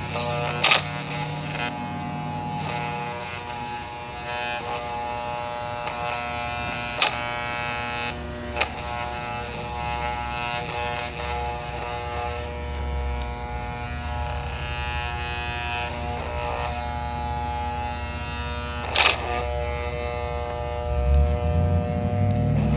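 Hamilton Beach 7 Speed Blendmaster blender's brushed motor running with no jar fitted, a steady high buzzing whine. A few sharp cracks cut through it, the strongest about seven and nineteen seconds in.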